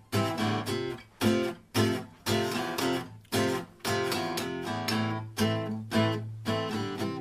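Acoustic guitar strummed in a steady rhythm, about two sharp chord strokes a second, each chord cut short before the next: the instrumental intro of a song before the vocals come in.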